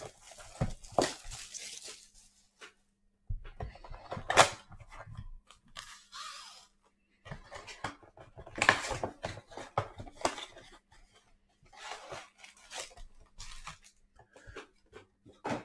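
Crinkling and rustling of plastic wrapping and cardboard, in irregular bursts with light knocks, as a mega box of football trading cards is opened and its packs are pulled out.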